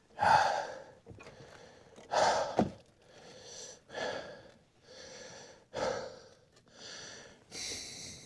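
A man breathing heavily, with loud gasping breaths about once a second, the first two the loudest.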